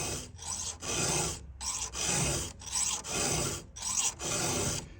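Round 7/32-inch chainsaw file rasping across a cutter tooth of a 3/8-pitch saw chain, in about eight steady back-and-forth strokes: hand-sharpening the tooth.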